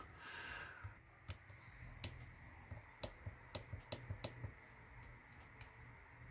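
Faint, irregular small clicks from fingers working a breadboard circuit with its push button and jumper wires, scattered between about one and four and a half seconds in.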